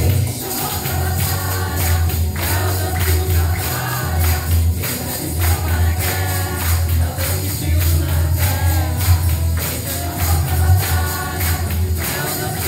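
Women's choir singing a song with tambourine over a deep, steady bass accompaniment.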